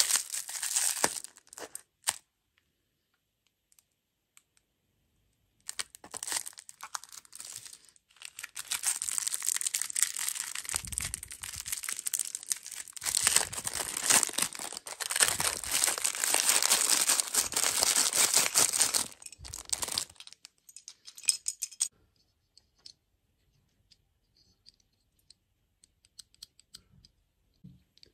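Thin plastic candy wrappers crinkling and tearing as they are pulled open by hand. There is a short burst at first, a pause of a few seconds, then a long run of crinkling lasting about a quarter of a minute that dies away to a few faint clicks near the end.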